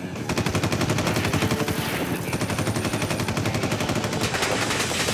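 Fully automatic M16 rifle firing one long continuous burst of rapid, evenly spaced shots, starting about a quarter second in.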